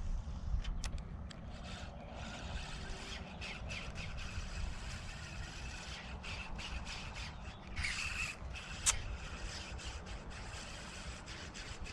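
Wind rumbling on the microphone, with scattered faint clicks and scrapes, a brief harsh sound about eight seconds in and a sharp click just after it.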